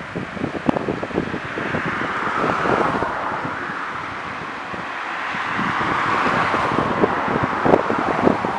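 Wind buffeting the microphone in uneven low thumps, under a broad rushing noise that swells twice, about two and six seconds in.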